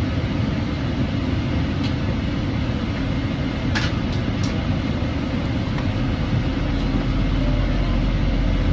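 Steady low rumble inside a Boeing 777-300ER's cabin, with a few short clicks about four seconds in. The deepest part of the rumble grows slightly louder near the end.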